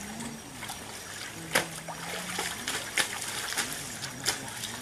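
Shallow water trickling and splashing over rocks in a stream, with a few sharper splashes, the clearest about a third of the way in.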